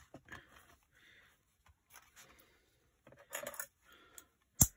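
Sheets of paper and card being handled and slid against one another on a craft mat: soft rustling, a louder rustle about three and a half seconds in, then a single sharp click near the end.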